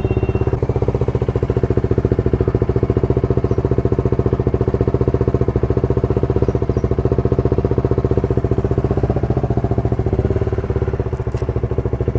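Bajaj Dominar 400's single-cylinder engine idling steadily as it warms up, its exhaust beating in a fast, even pulse.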